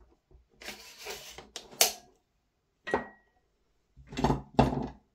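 An airsoft gas-blowback rifle and its parts being handled on a workbench: a scraping rattle ending in a sharp metallic click about two seconds in, another click with a short ring about three seconds in, then two heavier knocks near the end.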